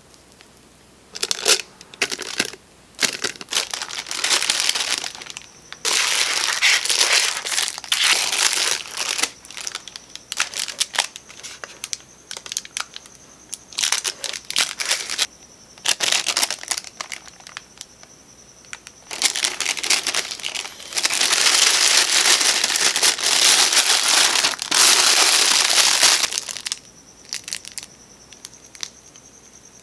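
A plastic piping bag crinkling and rustling in repeated bursts as it is handled and filled with cookie dough, then quieter near the end. A faint steady high whine sounds in the pauses.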